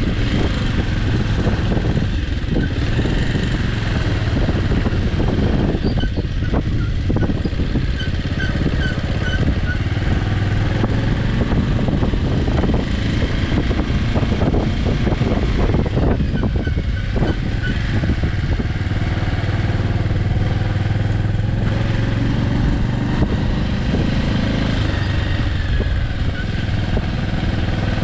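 Bajaj Avenger 160 Street's single-cylinder engine running steadily as the motorcycle rides along, heard from the rider's position.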